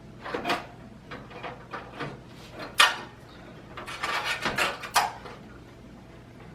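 Motherboard being set into a PC case and nudged into line with the standoffs and rear I/O shield: scattered light knocks and clicks with soft scraping, the sharpest knock about three seconds in and a cluster of them a second or two later.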